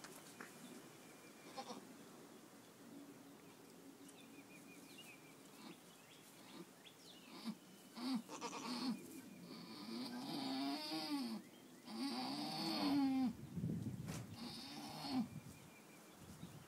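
Nubian doe in labor crying out as she strains to push. There are about six bleats in the second half, their pitch rising and falling, two of them drawn out for over a second.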